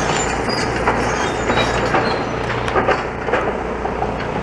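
Demolition excavators working: a steady engine drone with irregular clanks and knocks of metal and rubble.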